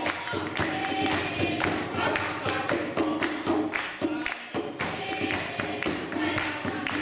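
Live music: a group of voices singing over a beat of sharp rhythmic hits, with a brief dip about four and a half seconds in.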